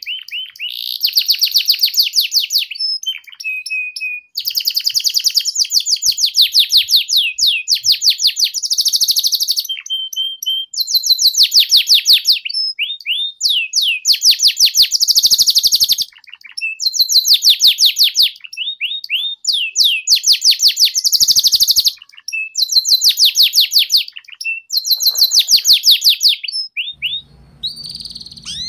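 Domestic canary singing in repeated phrases of very fast, high trills, each a second or two long, with short pauses between. This is the rapid chattering 'ngeriwik' song used as a lure for young canaries learning to sing.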